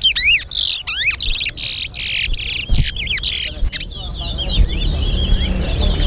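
Caged male chestnut-bellied seed finches (towa-towa) singing: quick sweeping whistled notes, then a fast, dense run of song in the middle, then more sweeping notes.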